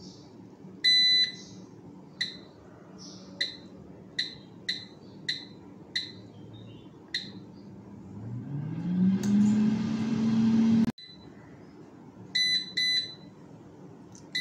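Philips air fryer's control panel beeping: one longer beep, then a string of short single beeps as the timer buttons are pressed. Then its fan motor spins up with a rising whir and rush of air that stops abruptly about eleven seconds in. Near the end comes a quick run of beeps, with the timer at zero.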